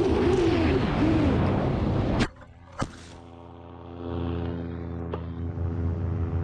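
A motor droning in flight with a wavering, falling pitch under heavy wind rush; it cuts off abruptly about two seconds in. A sharp click follows, then a quieter steady hum.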